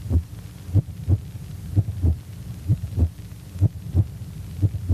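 Low double thumps in a heartbeat rhythm, about one pair a second, over a steady electrical hum.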